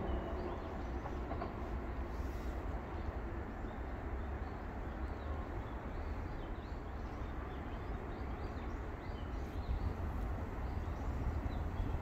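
Steady low outdoor rumble with faint, high, short bird chirps scattered through it, more of them in the second half.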